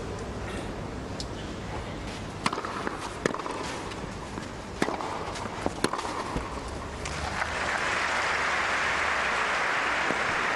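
Tennis ball struck by rackets in a short rally on a clay court: several sharp hits a second or so apart. From about seven seconds in, crowd applause, louder than the rally, runs on.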